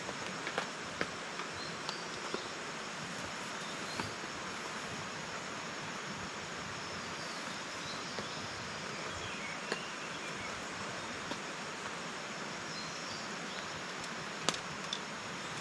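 Steady forest ambience: an even rushing hiss with faint high insect chirps and a few sharp clicks scattered through it.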